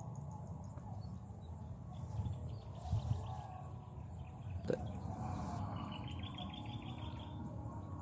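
Small birds chirping in short repeated notes, with a quick run of chirps near the end, over a steady low rumble. A single sharp click comes about halfway through.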